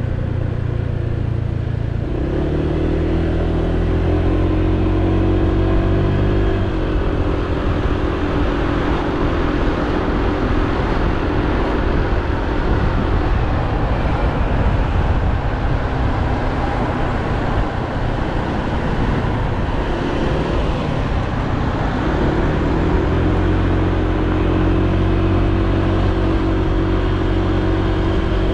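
Honda PCX 125 scooter's single-cylinder engine running under way, heard from on board with a steady wind and road rush. Its pitched engine note comes up and holds about two seconds in, sinks into the rush for a long stretch, and rises again near the end as the scooter picks up speed.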